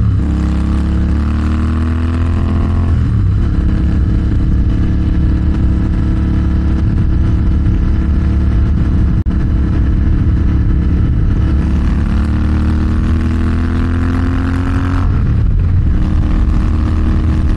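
Motorcycle engine under way, pulling up in pitch twice and dropping sharply at each upshift, about three seconds in and again near fifteen seconds, with steady running between. Wind rush on the microphone runs underneath.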